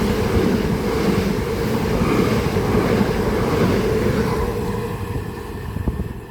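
A pair of Class 375 Electrostar electric multiple units passing through at speed: a steady, loud rumble and rush of wheels on rail, easing off slightly near the end.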